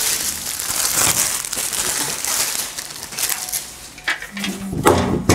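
Packaging crinkling and rustling in irregular handfuls as a laptop stand is unwrapped from its box.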